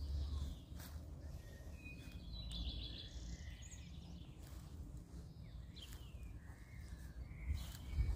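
Songbirds calling and singing in short phrases, with a quick trill of repeated notes about two and a half seconds in, over a steady low rumble.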